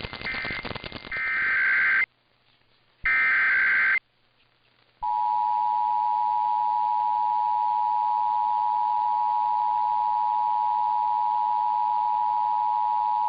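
Emergency Alert System test signal. Two harsh, buzzing bursts of SAME header data, about a second each with a second's gap between, are followed about five seconds in by the steady two-tone EAS attention signal.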